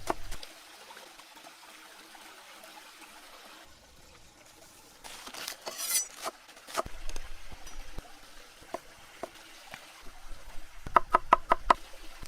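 Kitchen preparation sounds: scattered knocks and clinks of utensils and dishes, a short rush of noise about five seconds in, and a quick run of about six sharp knocks near the end.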